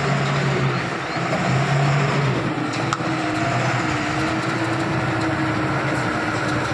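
Ashok Leyland 3718 10x2 cargo truck's diesel engine running steadily as the truck rolls slowly up toward the listener at low speed.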